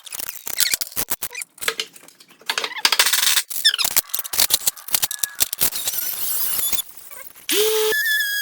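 Fast-forwarded workshop sounds: a rapid jumble of clicks, knocks and high chirping squeaks. Near the end come a rising tone that holds steady, then a higher steady whistle-like tone.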